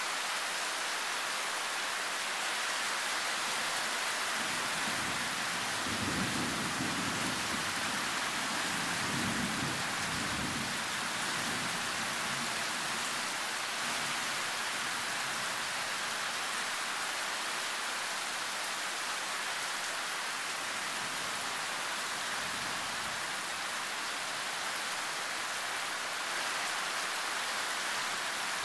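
Loud, heavy tropical rain falling steadily. A low rumble of thunder rolls through from about five seconds in to about halfway, half drowned out by the rain.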